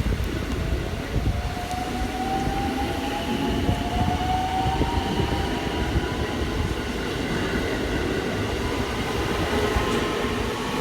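Electric commuter train's traction motors whining over the rumble of the wheels on the rails, the whine rising slowly in pitch as the train picks up speed.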